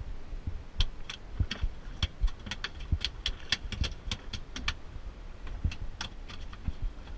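Freshly landed fluke (summer flounder) flopping on a fibreglass boat deck: a quick, irregular run of sharp slaps and clicks for a few seconds, then two more near the end.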